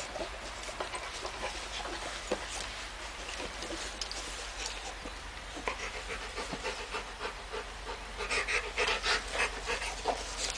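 Labrador retriever panting in quick, rhythmic breaths, which grow louder about eight seconds in.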